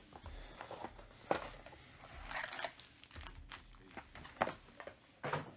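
Handling of a trading-card box and its wrapped card packs: the cardboard box being moved and set down and the packs rustling and crinkling, with a few sharp knocks.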